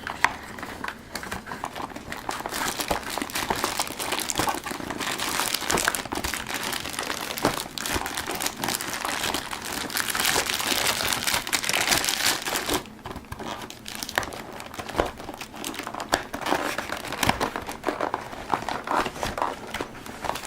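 Packaging being crinkled and rustled by hand while the keyboard's cables are pulled out of it: a dense, crackling rustle for about the first thirteen seconds, then quieter, scattered crinkles.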